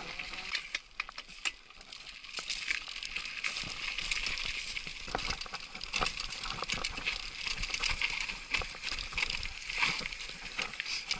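Trek Superfly mountain bike riding down a loose dirt singletrack: a steady hiss of tyres on dirt with frequent clicks and rattles from the bike over bumps and stones, getting louder from about two seconds in as the bike picks up speed.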